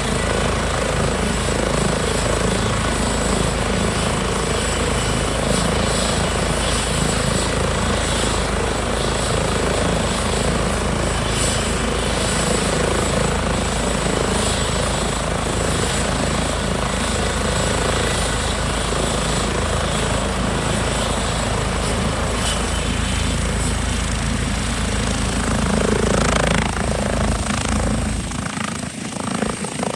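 Rescue helicopter's turbine engines and rotor running steadily with a rapid rotor beat and turbine whine. About two seconds before the end the deep rotor thump drops away and the sound thins out.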